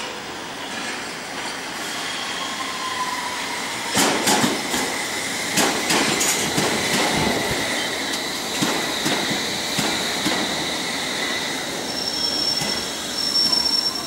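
London Underground S Stock train pulling into the platform and braking to a stop: wheels clacking over rail joints from about four seconds in over a steady electric whine, with a high wheel squeal near the end as it halts.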